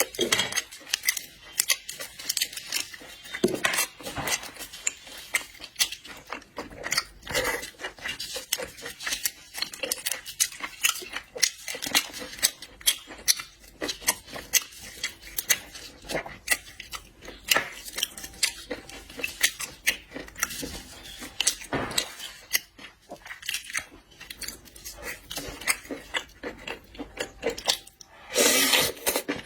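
Close-miked eating sounds: chewing and crunching seafood, with many small sharp clicks and crackles, and a short rustling burst near the end.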